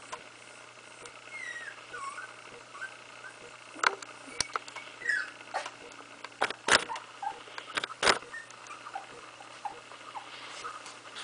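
A 16-day-old puppy making a few thin, high squeaks and whimpers that slide up and down in pitch, with several sharp clicks and knocks in between.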